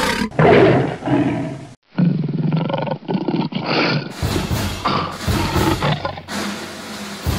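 A series of loud roars in several joined pieces, each cutting off abruptly, with a brief gap about a second in.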